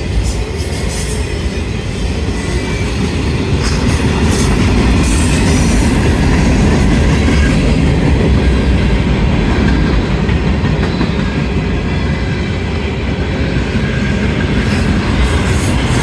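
Freight train cars rolling past at close range: a steady, loud noise of steel wheels running on the rail, growing a little louder about four seconds in.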